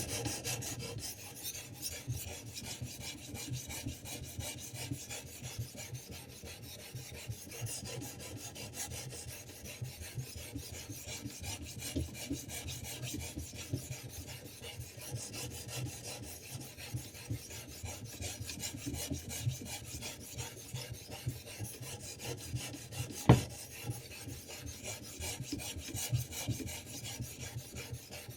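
Diamond stone of a guided knife sharpener scraping along a steel knife blade in quick, repeated strokes. A single sharp click comes about 23 seconds in.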